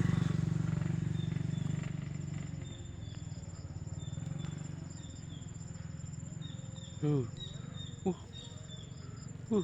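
Insects chirping: a steady high trill with short chirps repeating over it. A low engine hum fades away over the first few seconds, and three short calls falling in pitch come near the end.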